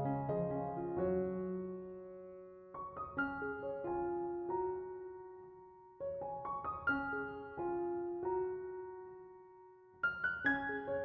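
Background piano music in gentle phrases, each beginning about every three seconds and then fading away.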